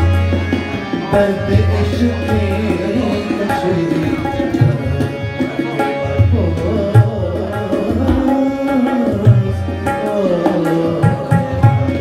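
Tabla drumming in a live Afghan song's instrumental passage, with deep booming bass strokes from the bayan and sharper strokes from the treble drum, under a keyboard melody of held notes.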